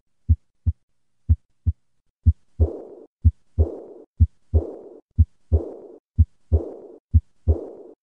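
Heart sounds in a 'lub-dub' rhythm about once a second. From about two and a half seconds in, a high-pitched diastolic murmur starts right after each second heart sound and fades away before the next beat. This decrescendo murmur is the sign of aortic regurgitation.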